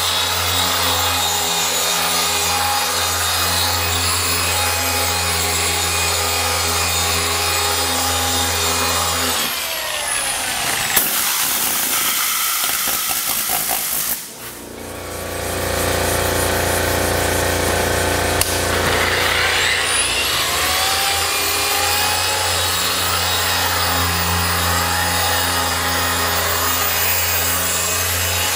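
Electric machine polisher running steadily on a car hood's paint. It winds down with a falling whine about ten seconds in, and after a short lull spins back up with a rising whine a few seconds past the middle, then runs on.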